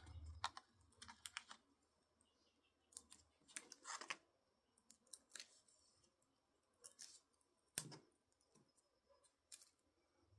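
Faint, scattered small clicks and crackles of foam adhesive dimensionals being peeled off their backing sheet and pressed by hand onto a strip of cardstock.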